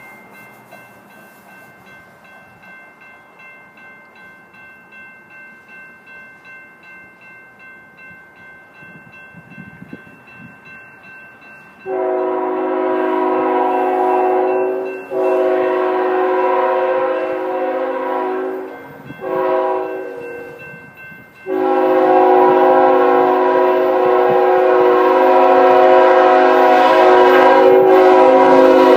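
Railroad crossing bell ringing in a steady rhythm, then a locomotive air horn sounds the grade-crossing signal: two long blasts, a short one, and a final long blast that keeps growing louder as the train nears.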